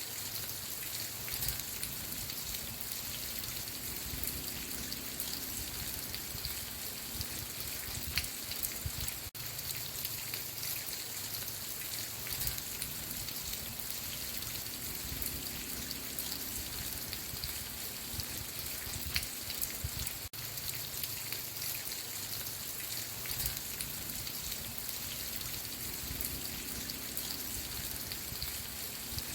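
Steady rain falling, an even hiss with many single drops ticking through it. There are two very brief dips in the sound, one about nine seconds in and one near twenty.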